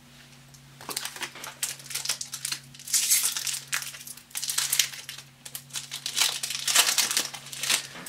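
Foil wrapper of a Magic: The Gathering booster pack crinkling and crackling as it is handled, in repeated bouts over several seconds.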